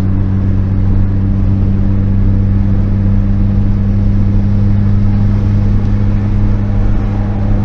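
Honda car cruising at steady highway speed, heard from inside the cabin: a loud, steady drone of engine and road noise.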